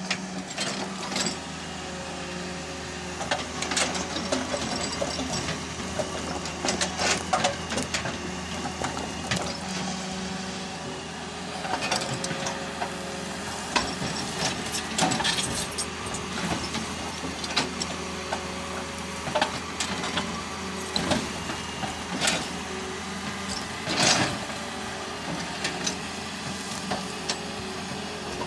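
Hitachi EX200 hydraulic excavator's diesel engine running steadily, with frequent sharp clanks and knocks of steel and rock as the machine works through a rocky cut; one especially loud knock comes near the end.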